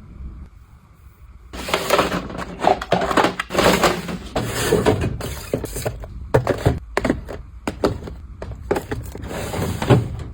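Close-up handling noises: objects being knocked, set down and rustled in quick succession, starting about a second and a half in.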